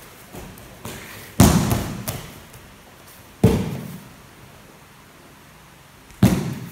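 Three heavy thuds of bodies hitting the tatami mats as aikido partners are thrown and take breakfalls, each with a short echo from the hall.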